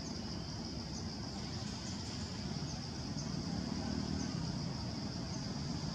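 Outdoor ambience: a steady high-pitched insect drone over a low rumbling background, with faint chirps now and then and a low hum that swells a few seconds in.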